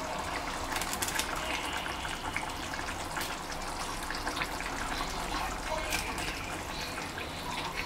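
Gravy simmering in a frying pan of fried fish, making a steady bubbling hiss, while a plastic slotted spatula stirs and bastes, with scattered small clicks and taps against the pan.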